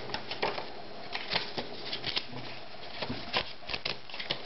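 Paper leaflets and a thin cardboard sleeve being handled: irregular rustles, with light taps and clicks of card.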